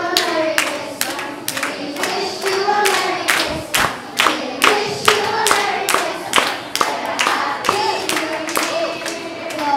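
A group of children singing a song together, with steady rhythmic hand-clapping keeping the beat at about two to three claps a second.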